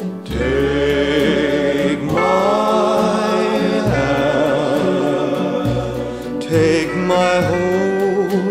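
Background music: a slow song with long held notes that waver with vibrato, changing note every couple of seconds.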